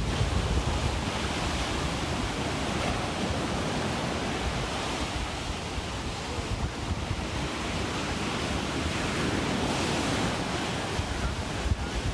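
Ocean surf breaking and washing in, with the noise swelling and easing, while wind buffets the microphone with a low rumble that is strongest near the start and the end.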